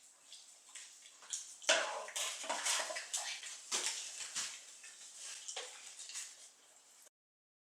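An animal eating from a plate: irregular crunching and clicking, louder from about two seconds in, that cuts off abruptly near the end.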